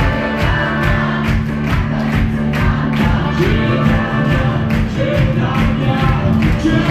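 Live band playing a song to a steady beat, with several voices singing over the instruments.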